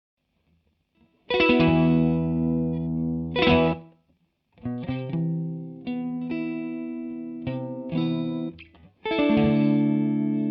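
Electric guitar played through a TC Electronic Corona Mini chorus pedal. After about a second of silence, a strummed chord rings for about two seconds. A short break follows, then a run of picked chords, and near the end a chord is struck and left ringing.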